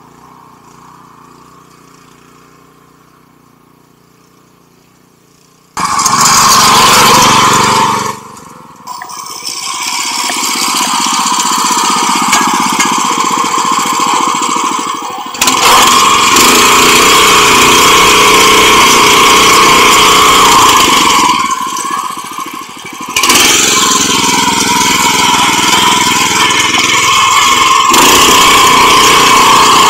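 Engine of a 7 hp rotary tiller (power weeder). After about six fairly quiet seconds it cuts in suddenly and runs loud and steady with a strong droning tone. The sound drops away briefly twice and picks up again each time.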